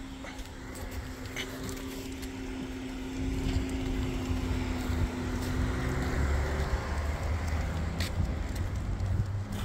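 A motor vehicle going by on the road: a steady engine hum with tyre noise, growing louder about a third of the way in, and a deeper rumble in the second half.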